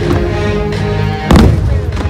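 A firework bursting with a single loud bang about 1.3 seconds in, over loud show music with held notes.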